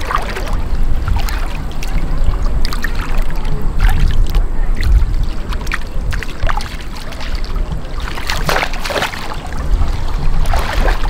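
Wind rumbling on the microphone over shallow sea water sloshing and splashing, with bursts of splashing about eight and a half seconds in and again near the end.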